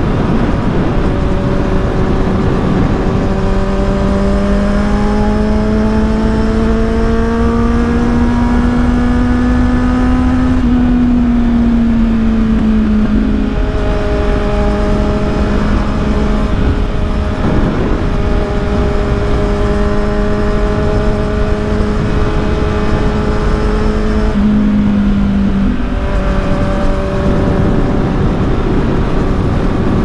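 Kawasaki Z800's inline-four engine through an Akrapovic exhaust, pulling under load at speed. Its note climbs slowly, then drops with gear changes about 13 and 26 seconds in, over a steady wind rush.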